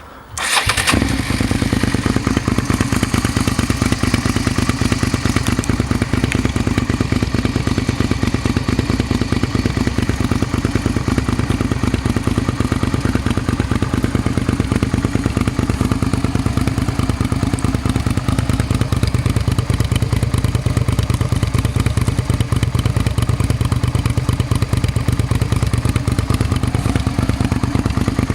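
2001 Suzuki SV650's V-twin engine, fitted with a new exhaust, starting about half a second in and then idling steadily with a loud, even pulse.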